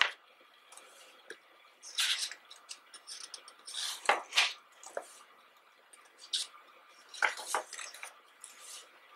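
Pages of a photobook being turned by hand: several short paper rustles and flaps, a second or two apart.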